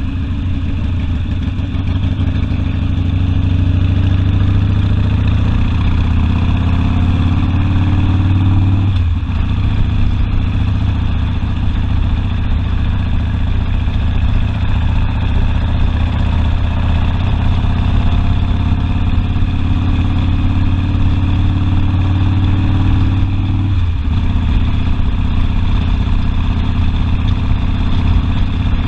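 Harley-Davidson Sportster's V-twin engine pulling under way. Its pitch climbs slowly, then drops suddenly twice as the rider shifts up a gear, about nine seconds in and again near the end.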